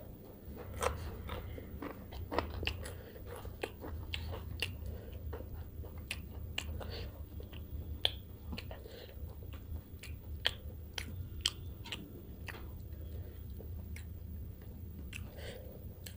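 Close-up eating sounds of a person chewing fish curry and rice: wet mouth clicks and smacks, scattered through, over a steady low hum.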